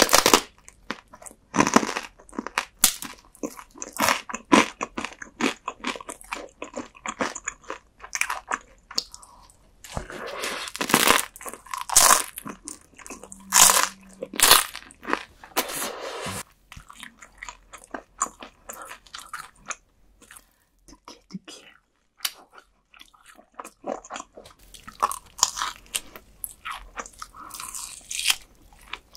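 Close-miked eating sounds: crunchy bites and chewing of toasted baguette with roasted beef bone marrow, loudest in a run of crunches about ten seconds in, then wet gnawing and chewing on grilled meat on the bone near the end.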